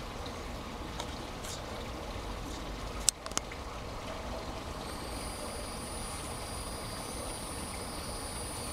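Steady rushing noise like running water, with a few sharp clicks about three seconds in; from about halfway, a faint high steady whine joins it.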